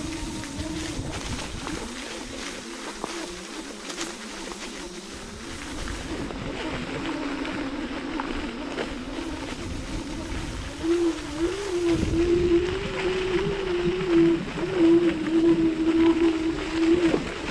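Electric scooter motor whining, a single tone that wavers in pitch and grows louder and surges on and off in the last few seconds. Scattered knocks and rattles from riding over rough ground run through it.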